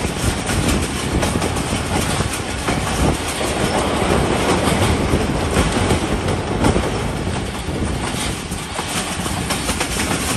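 Passenger train running at speed: a steady rumble of wheels on rails with clickety-clack over the rail joints, as the train crosses a railway bridge.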